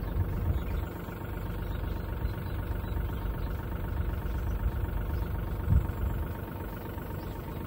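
Diesel engine of a construction machine idling steadily, with one brief knock a little under six seconds in.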